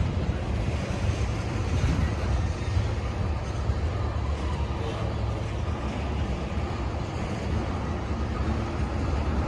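Freight train tank cars rolling past: a steady low rumble of steel wheels on the rails.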